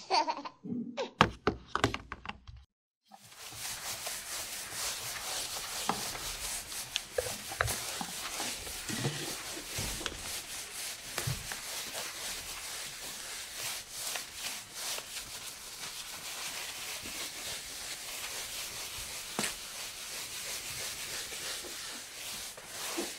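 A few knocks from handling a plastic baby doll, then a cloth towel rubbing steadily over the doll's plastic head and hair, a close, scratchy rubbing that goes on to the end.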